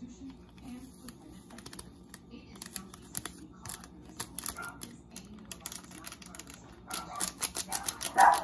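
Fingers tapping and shaking a small plastic packet of glitter and sequins over slime: a run of quick light clicks and crinkles, coming thicker and louder near the end.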